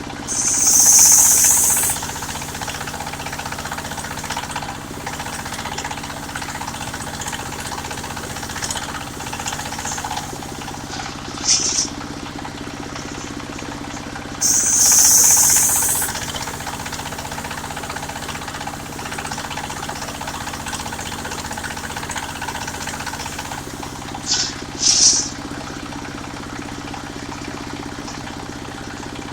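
Engine of a mobile circular sawmill running steadily. Short, loud, high hissing bursts break in twice for about two seconds, near the start and about halfway through, with a few briefer ones later.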